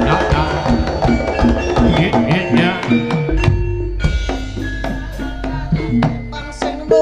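Javanese gamelan music accompanying a jaranan dance: quick hand-drum strokes over bright metallophone notes. About three seconds in the drumming thins and a deep, sustained low tone comes in under the melody.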